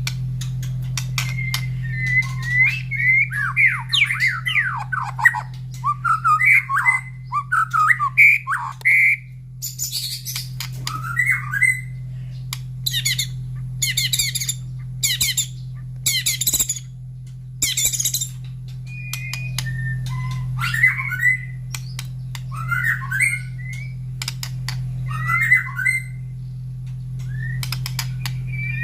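White-rumped shama singing in varied, quick whistled phrases, with a run of short, harsh, very high bursts around the middle. A steady low hum lies underneath.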